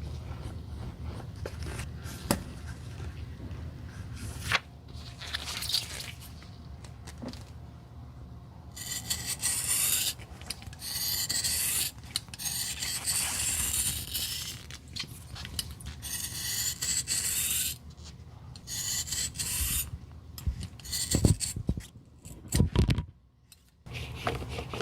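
Abrasive tool working a high-heeled shoe during repair, with rasping and scraping strokes. Light scrapes give way, about nine seconds in, to runs of harsh rasping strokes. Near the end come a few loud knocks.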